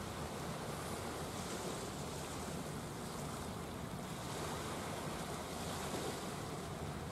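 Steady seaside ambience: wind on the microphone and small waves washing at the shore, with a faint low steady hum underneath.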